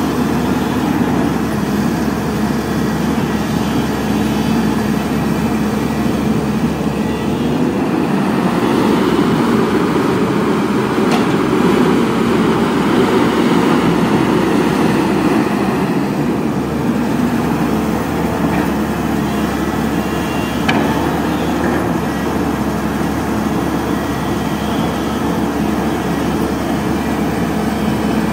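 Caterpillar 320D hydraulic excavator's six-cylinder diesel engine running steadily while the machine works, growing louder for several seconds in the middle. Two brief sharp clanks come partway through.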